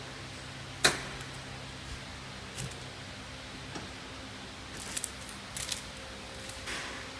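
Clear plastic packaging film being handled and threaded through a pillow-packing (flow-wrap) machine: one sharp knock about a second in, then a few lighter clicks and crinkles, over a steady low hum.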